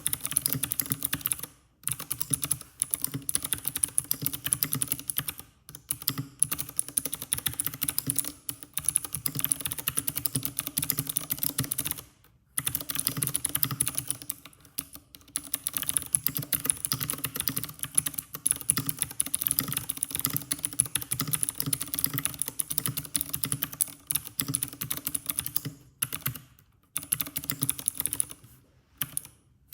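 IQUNIX F97 mechanical keyboard with blue switches being typed on quickly: a dense run of clicky keystrokes, broken by brief pauses every few seconds.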